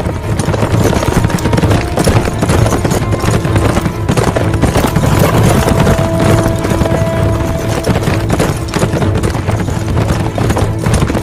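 A horse galloping on a dirt track, its hoofbeats quick and continuous, under a dramatic film score.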